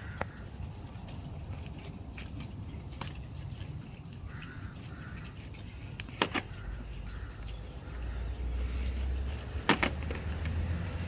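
Handling noises of working a small pocket knife on plastic cable ties on a bike's packing: a few sharp clicks, two of them close together near the end. A low rumble builds from about eight seconds in.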